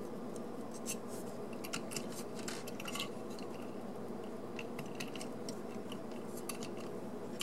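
Scattered light clicks and taps of small hard parts being handled: a Phillips screw being backed out and the plastic shell and die-cast metal frame of a model 0-6-0 tank engine kit being worked apart, over a steady low hum.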